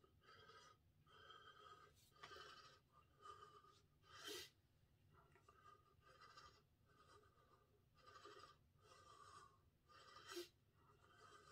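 Faint breathing of a man exercising with a kettlebell, a soft breath about once a second, with two sharper exhales about four seconds in and near the end.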